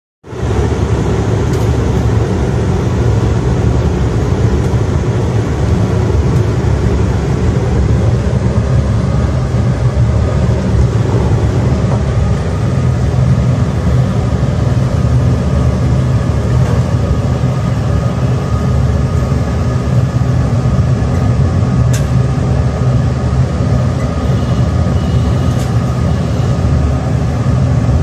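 Loud, steady low machine rumble with a few faint steady tones above it, running without a break.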